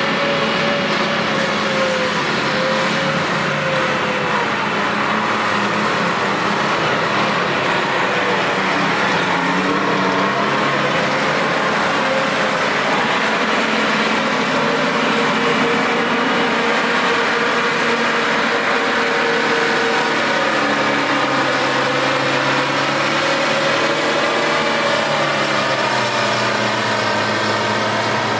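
Two-stroke Detroit Diesel 4-71 engines of a Terex TS-14B scraper (one in front, one behind) running hard, loud and steady, with their pitch rising and falling as the machine works.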